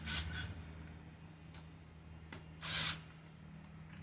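Hand tools working on bolts in a V8 engine block: a few short metallic clicks and one brief ratchet-like rasp about two and a half seconds in, over a steady low hum.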